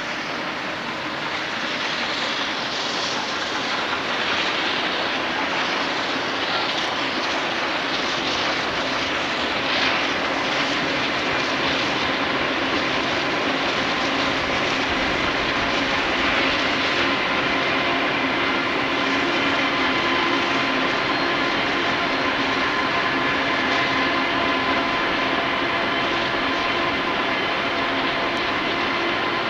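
AD60-class Beyer-Garratt steam locomotive No. 6029 approaching under power, a steady roar that grows a little louder over the first few seconds, with steady whining tones running through it.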